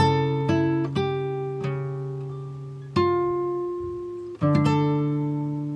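Background music: chords on a plucked string instrument, each struck sharply and left to ring out and fade, a new one every half second to a second and a half.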